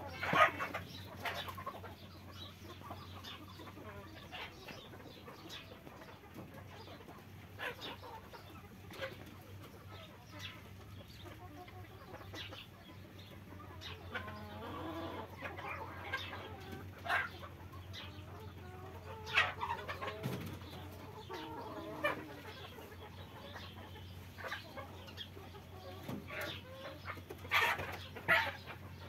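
A flock of desi (Indian country-breed) hens and roosters clucking, with scattered short squawks and calls, a longer drawn-out call around the middle, and the loudest calls near the start and near the end.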